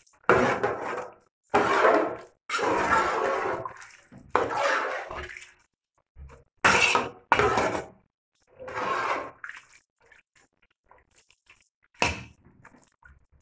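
Metal ladle stirring spaghetti in a large aluminium pot of liquid, scraping and sloshing in strokes of about a second each. The stirring then gives way to a few light clicks and one sharp clink near the end.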